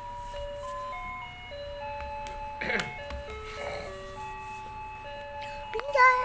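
A simple electronic jingle-like melody of plain, held single notes stepping up and down in pitch. A brief rough sound cuts in about two and a half seconds in, and a voice, likely the child's, begins just before the end.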